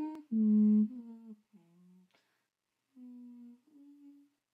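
A voice humming in short held notes, a loud one about a second long at the start, then several quieter, lower hums. It is a drowsy 'mmm' in reply to being told to wake up.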